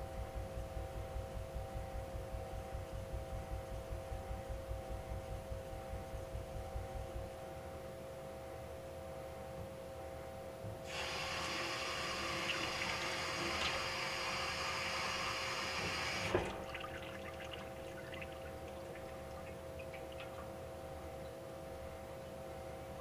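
Water running from a kitchen tap for about five seconds, cutting off with a click. Before it, knife strokes on a whetstone go at about four a second for the first several seconds, then stop.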